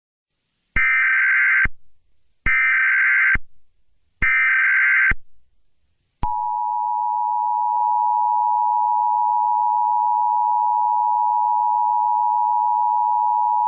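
Emergency Alert System SAME header: three short, identical bursts of screechy digital data tones. About six seconds in, the steady two-tone EAS attention signal begins.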